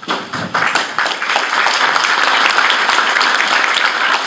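Audience applauding. The clapping swells within the first second and then holds steady and loud.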